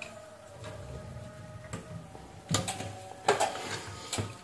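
Small clicks and knocks of hands handling wires and connectors on a welding machine's circuit board, with a few sharper clacks in the second half.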